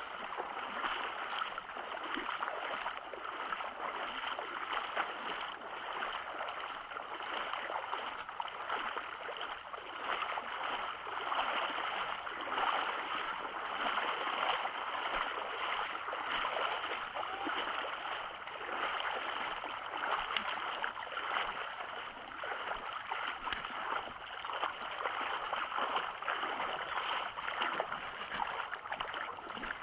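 Steady rush and crackle of water and spray along the hull of a radio-controlled boat running across a river, heard from a camera on board.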